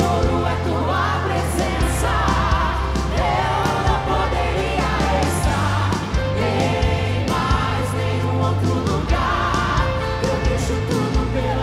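Live band playing a Catholic worship song: a lead voice with backing singers over sustained bass notes, with cymbal hits every couple of seconds.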